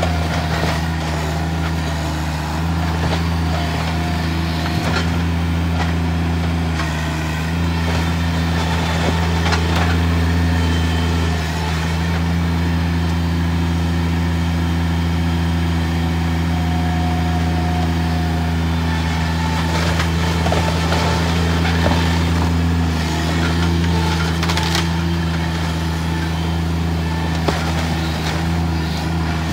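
Compact track loader's diesel engine running under load, its pitch rising and falling a little as it works, with a few sharp cracks and knocks of timber breaking in the second half as the machine pushes into a small wooden shed.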